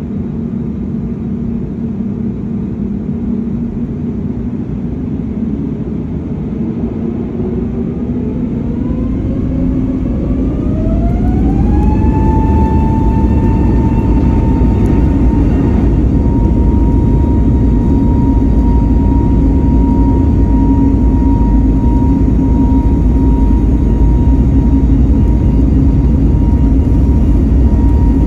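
Airbus A321neo's twin turbofan engines spooling up to take-off thrust: a whine that climbs steadily in pitch over a deep rumble, growing louder, then holding as a steady high tone over a heavy rumble for the rest of the time.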